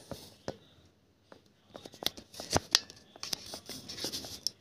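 Light handling noise: scattered sharp clicks, then denser rustling and clicking in the second half.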